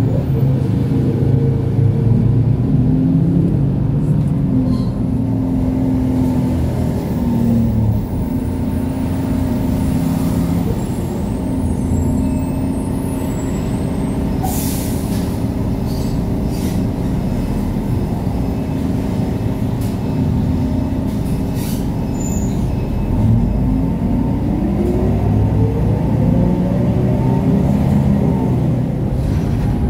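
Transjakarta city bus engine running, heard from inside the bus. The engine note drops as the bus slows, holds low through the middle, then climbs steadily as the bus speeds up again, with a brief hiss about halfway through.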